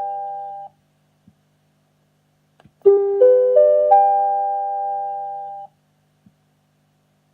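TOA preamplifier's built-in electronic ascending four-tone chime, the pre-announcement signal: four bell-like notes rising step by step, about a third of a second apart, ringing on together and then stopping together. It opens on the last of one chime dying away, and about three seconds in the full rising chime sounds again.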